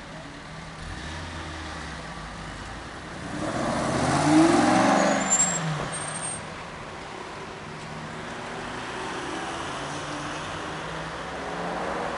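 Mansory-modified Aston Martin Vantage pulling away hard from a standstill, its engine note rising to a loud peak about four to five seconds in, then fading as the car drives off. Quieter street traffic runs on after it.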